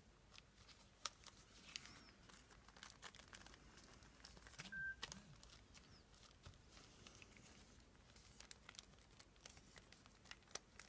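Faint paper rustling and crinkling with scattered light clicks, from paper pieces of a handmade journal being handled and fitted in place.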